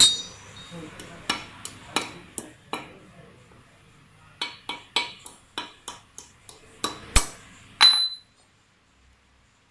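Steel wheel-bearing and steering-knuckle parts clinking and tapping against each other as the bearing is worked out of the knuckle: about fifteen sharp metallic clinks in two quick runs, the loudest about seven seconds in, and one near the end that rings briefly.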